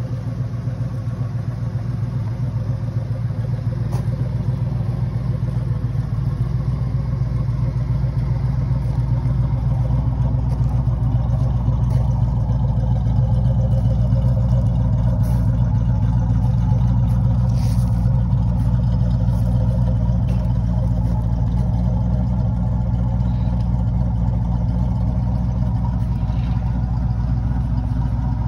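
A 1971 Ford Mustang Boss 351's 351 Cleveland V8 idling steadily, growing louder over the first dozen seconds or so and then holding even.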